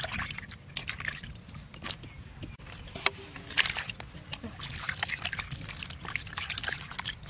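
Water splashing and sloshing in a plastic basin as hands wash eels in it, with many short splashes and knocks. About three seconds in, a sharp knock and a burst of splashing come as a basket of eels is tipped into the basin.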